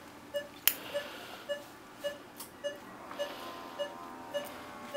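Anaesthesia monitor beeping steadily with the dog's pulse, a short beep a little under twice a second. A sharp click comes about two-thirds of a second in.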